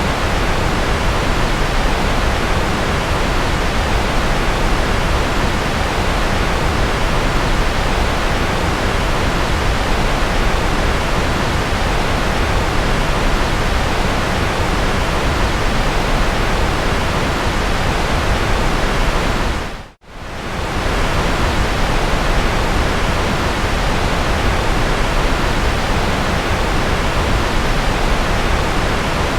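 Steady, even rushing white noise from a sleep-sound track billed as rocket or jet noise. About twenty seconds in it fades quickly to near silence and comes straight back up.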